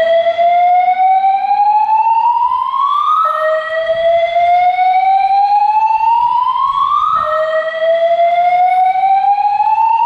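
Fire alarm voice evacuation speakers sounding a slow-whoop evacuation tone. Each loud tone sweeps upward over about four seconds, drops back, and starts again, giving two full sweeps and a third still rising at the end.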